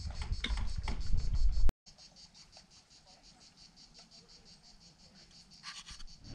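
Cicadas chirring in a fast, steady pulse. For the first second and a half a louder low rumble covers them; after it stops abruptly, only the faint cicadas remain.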